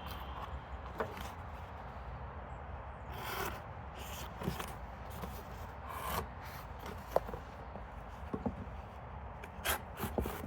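Folding pocketknife blade slicing through cardboard: a few separate rasping cuts with small clicks between them, the sharpest ones near the end.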